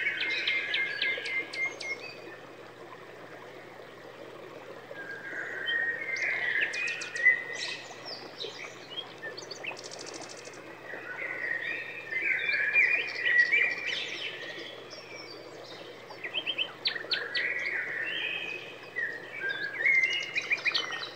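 A songbird singing in bouts of quick chirps, whistles and trills, each bout a few seconds long with short pauses between.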